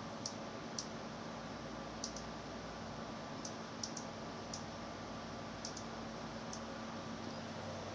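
Birds making short, high clicks at irregular intervals, some in quick pairs, over a steady hiss and low hum.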